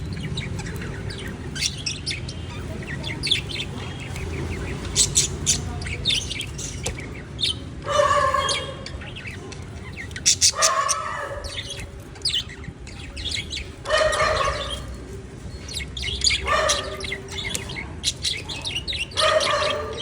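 Budgerigars chirping and chattering, with quick high chirps throughout. Louder, lower calls come about every two to three seconds.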